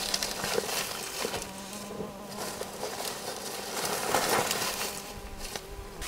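A flying insect buzzing at a steady low pitch, stopping near the end, over light crackling and rustling of dry leaves and soil as taro plants are pulled and handled.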